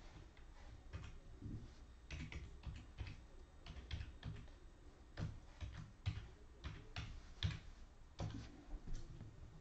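Faint, irregular clicking of keys on a computer keyboard as someone types.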